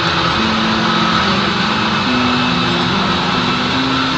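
Manual metal lathe running, a steady machine noise with a constant high whine and low hum tones that shift in pitch.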